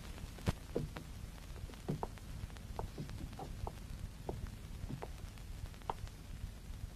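Scattered light footsteps and taps on a hard floor, irregular, about one or two a second, over a low steady hum.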